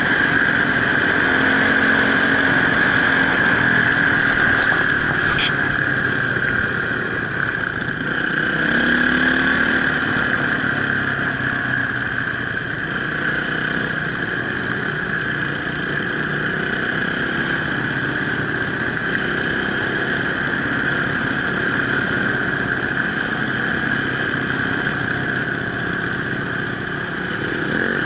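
Enduro motorcycle engine running steadily on an off-road ride, its revs rising and falling slightly now and then.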